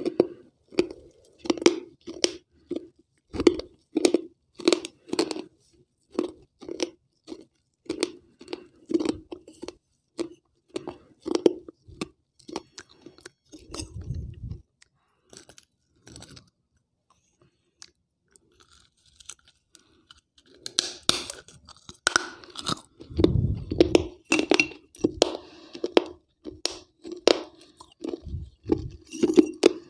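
Close-up crunching and chewing of pieces of a wet baked-clay gullak (terracotta money pot). There is a crunch about every half second, a pause of several seconds midway, and then the chewing resumes.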